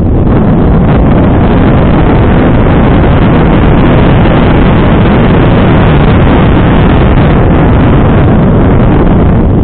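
Loud, steady wind buffeting on the microphone of a rider-mounted camera during a fast mountain-bike descent on a dirt trail.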